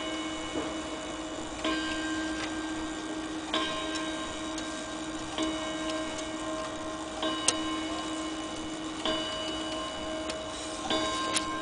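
Gustav Becker Westminster mantel clock striking the hour on its gong: one ringing strike of the same note about every two seconds, each sounding on into the next. Two sharp clicks come partway through and near the end.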